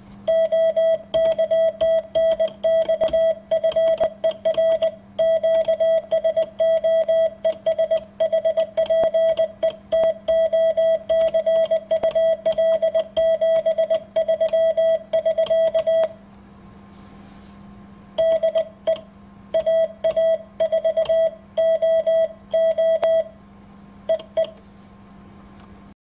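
Morse code sent by hand on a Morse key, heard as a high sidetone beeping in dits and dahs with a click at each keying and short gaps between characters. It stops about two-thirds of the way through, then resumes more sparsely before ending near the close. A faint steady low hum runs underneath.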